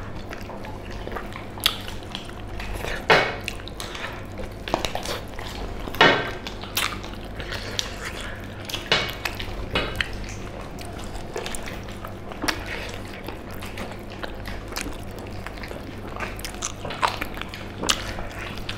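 Two people eating pork leg curry with their hands: wet bites, smacks and chewing as meat is torn from the bone, in irregular short clicks, over a low steady hum.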